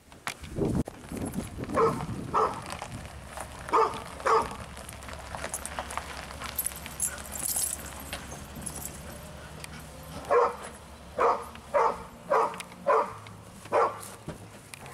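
Dog barking in two bouts: four barks in the first few seconds, then a quicker run of about six barks in the second half.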